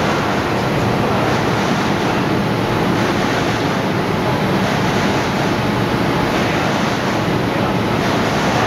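Six-colour Mitsubishi Diamond 3000 sheet-fed offset printing press running: a loud, steady mechanical rush with no distinct beat.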